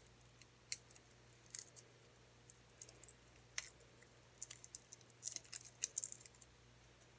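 Faint, irregular crackling of dry, papery garlic skins as fingers peel them off crushed cloves, coming in scattered short crackles and clicks. A low steady hum runs underneath.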